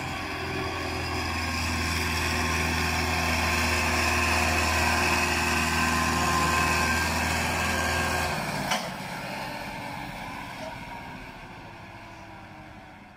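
Massey Ferguson 385 tractor's four-cylinder diesel engine running steadily under the strain of a heavily loaded sugarcane trolley, growing louder as it draws near. About eight seconds in its deep note drops away and the engine fades as it pulls off.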